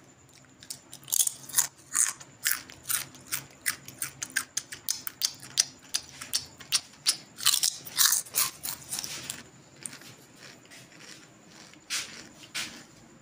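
Loud, close-up crunching and chewing of a crisp snack, a quick run of sharp crunches for about nine seconds, then two more near the end.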